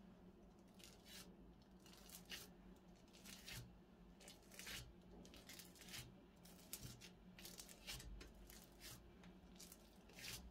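Slime-making materials being handled with no talking: about a dozen short, crackly rustles at irregular spacing, quiet overall.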